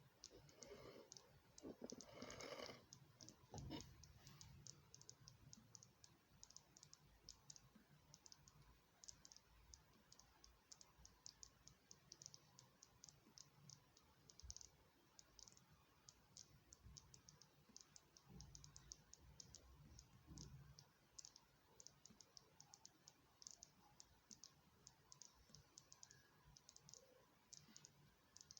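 Faint, irregular crackle of tiny clicks, several a second: gas bubbles popping at the vent of a charging battery as its electrolyte gasses. A few faint low bumps come in near the start and again past the middle.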